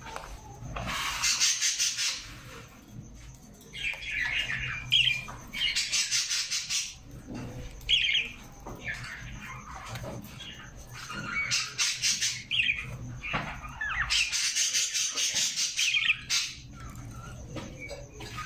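Parrot squawking: harsh, raspy calls in repeated bouts of a second or two, with shorter squawks in between.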